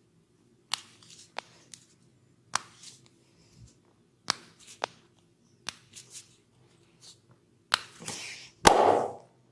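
Hands working bare skin in a massage: about eight sharp, unevenly spaced snaps and slaps, each with a short rubbing noise after it; the loudest comes near the end, followed by a longer, louder stretch of rubbing.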